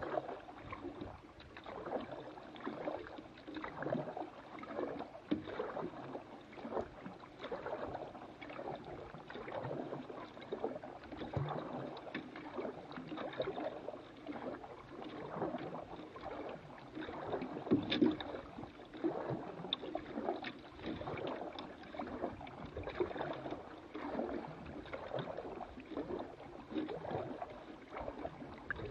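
Water gurgling and splashing along the hull of a small paddled boat under way, with irregular splashes from the paddle. There is no engine sound.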